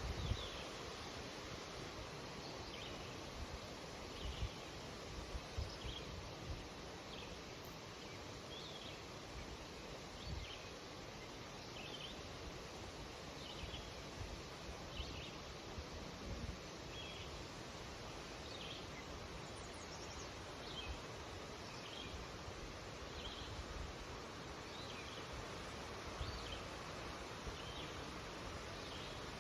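Wind rustling in birch trees as a steady hiss, with a bird giving short chirps about once a second throughout.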